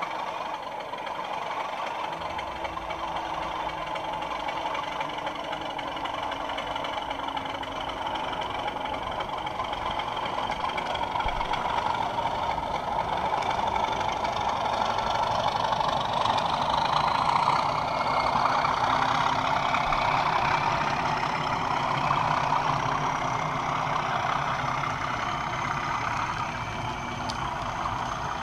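Model Class 37 diesel locomotive's DCC sound decoder playing diesel engine sound through its small onboard speaker as the train runs past. The engine note builds with a rising whine and is loudest about two-thirds of the way in, then eases off.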